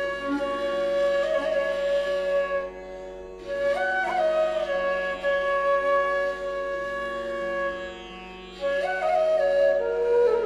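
Instrumental music: a melody of long held notes with pitch slides over a steady drone, with a new phrase starting about four seconds in and again near the end.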